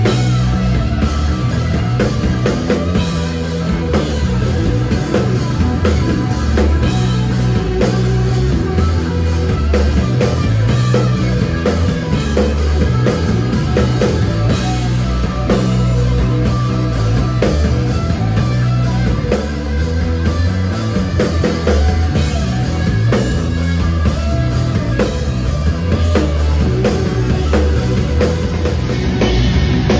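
A rock power trio playing live and loud: electric guitar, bass guitar and drum kit in a driving heavy psychedelic rock jam, continuous throughout.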